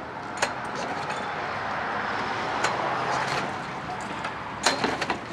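Old walk-behind lawnmower being pull-started by hand: the starter rope is yanked and the engine turns over without firing, with a few sharp clicks.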